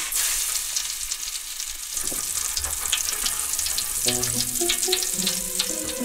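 Popping candy crackling in a steel pan: a dense sizzle of many tiny pops used as Foley for food frying. Background music with low held notes comes in about four seconds in.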